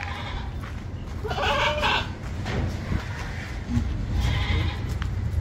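Buck goat bleating once, a short call lasting under a second, over a steady low rumble.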